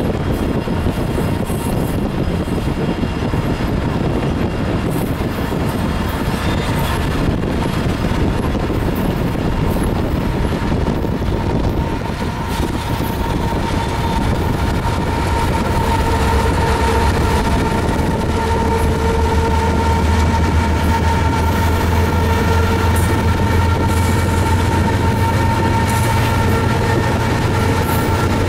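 Several diesel-electric locomotives of a freight train passing close by at speed, their engines and wheels on the rail making a continuous rumble and clatter. From about halfway a deep steady drone and a steady whine join in and grow louder as a locomotive comes past.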